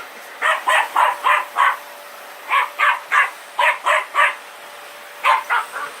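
Dog barking at a running vacuum cleaner in quick runs of three to five barks, with short pauses between the runs. The vacuum's steady hum sits faintly underneath.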